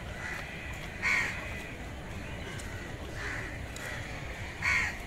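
Crows cawing: two loud caws, one about a second in and one near the end, with fainter caws between them, over a steady low background rumble.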